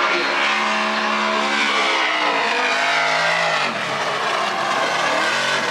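Drift car engines revving hard on track, with the pitch holding, sagging about three and a half seconds in, then climbing again, over a hiss of tyre squeal.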